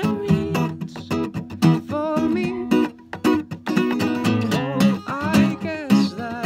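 Acoustic guitar played fingerstyle: a steady run of picked notes and chords in an instrumental passage of a song.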